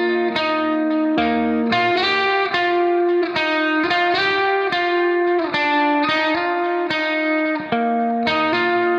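Background music led by a plucked guitar with effects, playing a steady run of notes.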